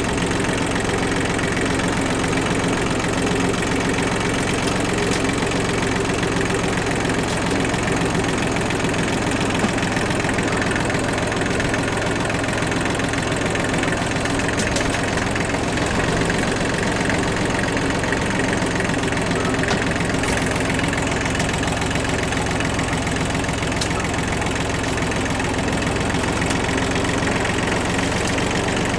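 Kubota tractor-loader-backhoe's diesel engine running steadily, with a few faint knocks heard over it now and then.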